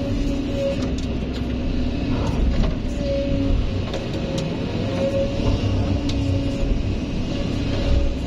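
Hydraulic excavator's diesel engine running under load, a steady low rumble with a whine that wavers up and down in pitch as the hydraulics work.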